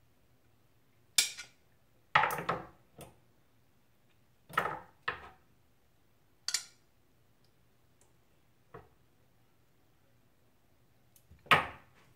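Utensils clinking and scraping against a china dinner plate as food is served onto it: several short clatters with pauses between them.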